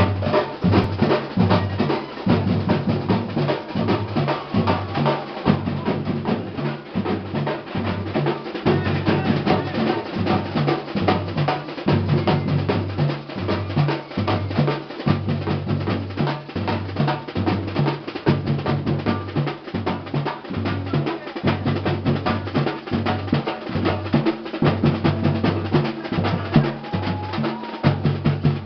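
A batucada samba percussion ensemble playing a steady driving groove: deep bass drums under rapid snare-drum strokes.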